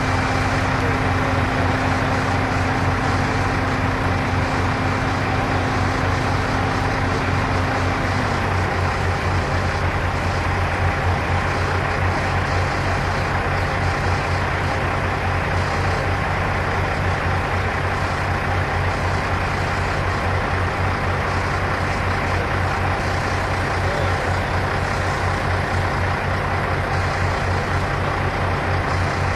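Heavy diesel engine running steadily under load, a low, even rumble; a separate steady higher hum stops about eight seconds in.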